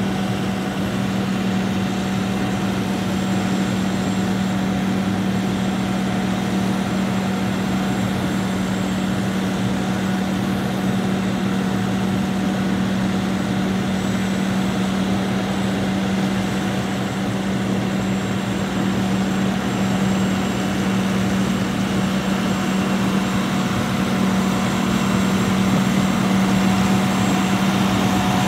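Diesel engine of a 2006 International 7400 truck running steadily with a constant drone while it powers the Elliott G85R sign crane's hydraulics, as the boom retracts and lowers to its stowed position. It grows slightly louder near the end.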